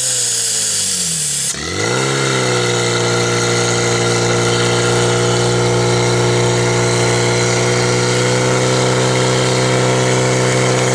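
Portable fire pump's engine running at high revs, pumping water through the hoses to the spray jets. Its pitch sags in the first second and a half, climbs back about two seconds in, then holds steady.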